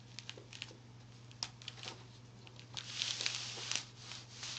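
Faint scattered clicks and a short rustle about three seconds in, from someone handling things at a computer, over a steady low electrical hum.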